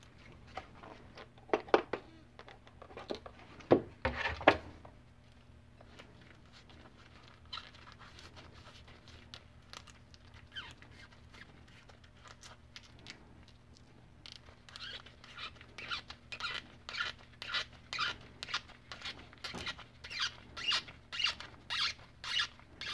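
Cotton swab being pulled back and forth through the threaded bore of a small micrometer compensator nut in nitrile-gloved hands. A few light clicks and knocks come first, then past the halfway mark a quick run of short squeaky rubbing strokes, a few a second.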